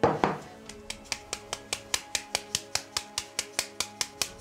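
Wooden drum sieve being knocked and shaken by hand over an enamel basin to sift flour: a brief louder bump at the start, then a steady run of sharp taps, about five a second.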